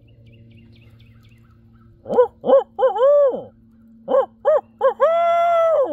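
A man hooting like an owl through cupped hands. About two seconds in come three hoots, the last one longer. After a short pause come three quick hoots and a long drawn-out one that falls away at the end.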